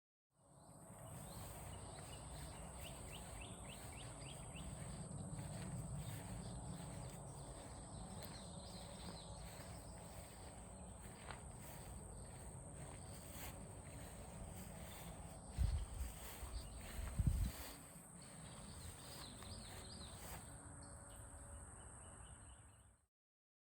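Outdoor background noise with a steady high-pitched whine, a few short chirps in the first few seconds, and two loud thumps a little past the middle.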